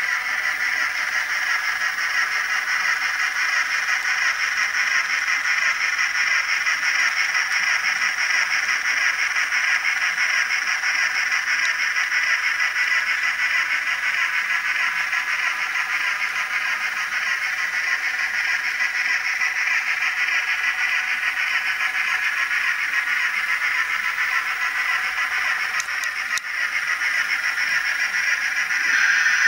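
N scale Athearn Genesis Challenger's DCC sound decoder playing steady steam-exhaust chuffing through the locomotive's tiny onboard speaker as it runs, a thin, hissy sound that gets louder just before the end.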